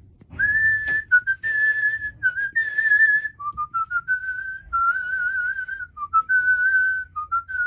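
A person whistling a short tune: three long high notes, then a lower phrase that steps back up, with a wavering note near the middle.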